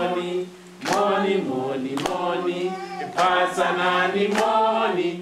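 Group of women singing a chant-like song in unison, with hand claps about once a second. The singing breaks off briefly about half a second in.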